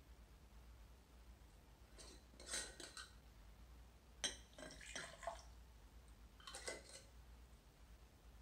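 Glass mason jar of water being handled: its metal screw lid unscrewed and screwed back on, heard as three short bouts of faint scraping and clinking, with one sharp click about four seconds in.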